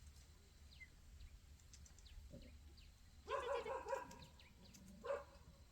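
A dog yelping and barking in a quick cluster of short calls about three seconds in, then once more near the end, with faint bird chirps.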